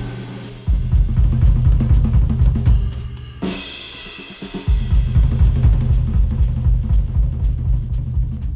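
Drum-heavy instrumental music played back through headphones and picked up by microphones at the ear cups. The bass and kick drop out for about a second near the middle while a higher melody carries on, then the full beat comes back.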